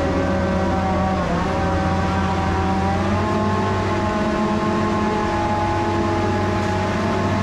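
Engine of farm machinery running steadily, its pitch sagging about a second in and rising again around three seconds as the load changes.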